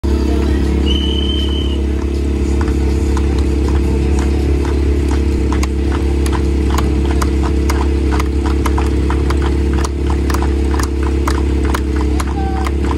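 Portable fire pump's engine idling loudly and steadily, with a constant rattling clatter of sharp ticks over it. A short high beep sounds about a second in.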